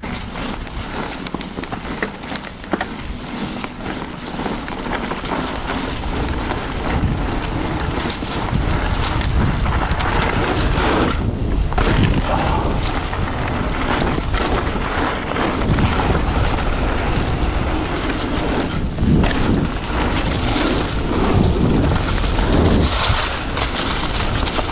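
Polygon Siskiu T7 mountain bike's tyres rolling over a trail thick with leaves and sticks, a continuous rushing noise with scattered short crackles and knocks, mixed with wind buffeting the microphone.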